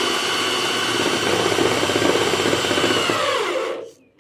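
Electric drill with a hex socket driving a self-drilling screw into a steel roofing sheet. The motor runs at a steady high whine, then winds down in pitch near the end as the trigger is released with the screw seated.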